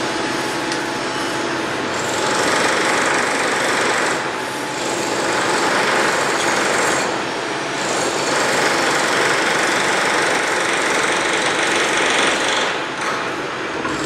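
Construction-site power tool hammering rapidly and continuously, in stretches of a few seconds that ease off briefly about four, seven and thirteen seconds in.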